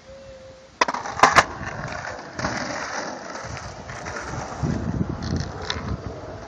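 Skateboard riding a concrete bowl. It starts about a second in with a few sharp clacks of the board on the concrete, then a steady rolling rumble of the wheels on the concrete.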